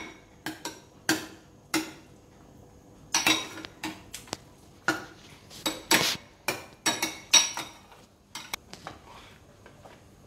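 Metal ladle clinking and scraping against a bowl and an aluminium cooking pot as liquid is scooped and ladled in: a quick, irregular run of sharp clinks that thins out and stops about eight and a half seconds in.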